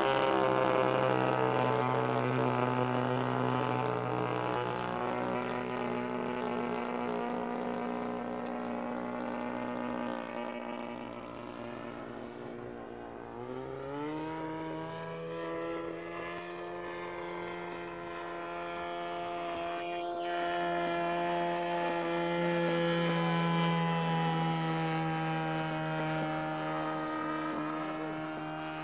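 Petrol engine and propeller of a radio-controlled P-40 Warhawk scale model airplane running steadily in flight, a constant droning tone. About halfway through the pitch rises and then holds higher as the engine speeds up.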